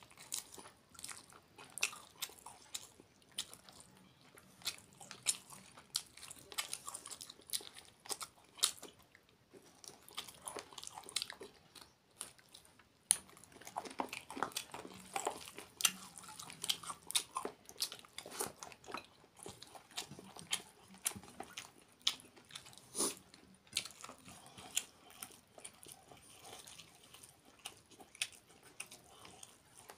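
A man biting and chewing chicken leg pieces and rice: many short, irregular mouth clicks and crunches.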